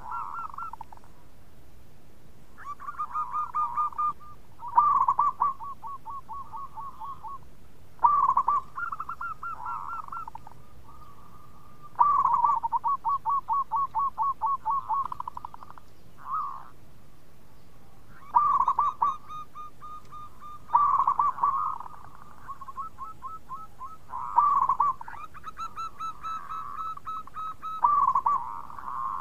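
Zebra dove (perkutut) cooing: about ten phrases of quick rolling, staccato coos, each lasting one to three seconds, with short pauses between them.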